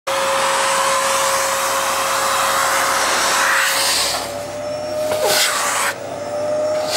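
Vacuum cleaner running, with a steady whine over a rush of air; about four seconds in the rush of air drops and changes as the hose nozzle is worked over the cat's fur.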